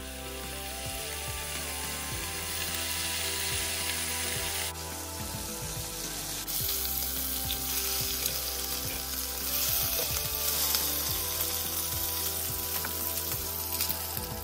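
Bacon strips sizzling in olive oil in a nonstick frying pan. The sizzle gets louder in two steps, about five seconds in and again a second and a half later.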